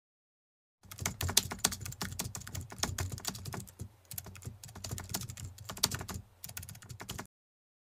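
Computer keyboard typing sound effect: a fast, irregular run of key clicks that starts about a second in, dips briefly midway, and cuts off suddenly near the end.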